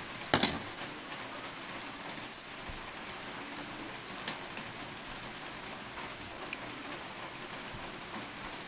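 Steady rain hiss, with three sharp taps in the first half.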